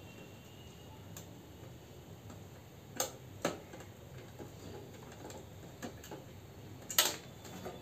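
Sharp clicks and knocks of an SSD and its mounting screws being handled and fitted into the metal drive bay of a desktop PC cabinet: two about halfway through, the loudest near the end, with fainter ticks between.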